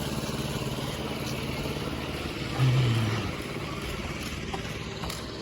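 Motor vehicle engine running steadily amid road traffic, with a brief, louder low hum about two and a half seconds in.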